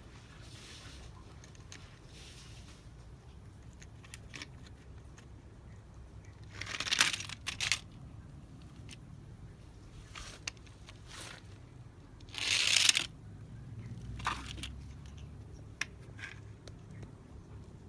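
Plastic toy vehicles being handled: short rustling, scraping bursts, the loudest about seven and about twelve and a half seconds in, with small clicks between.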